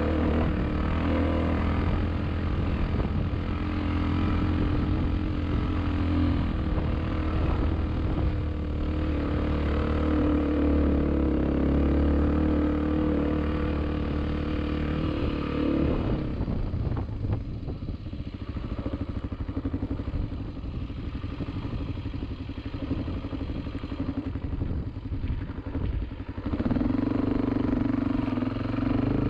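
Off-road vehicle engine running steadily while driving. About halfway through the engine note drops away for several seconds, then picks up again near the end.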